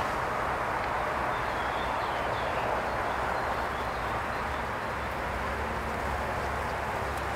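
Steady hum of a honeybee colony buzzing from an open hive full of bees.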